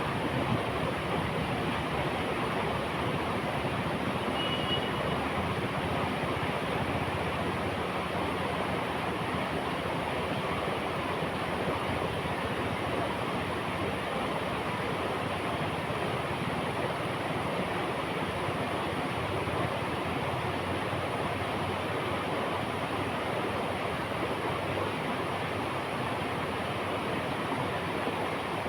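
River flowing, a steady, even rush of water.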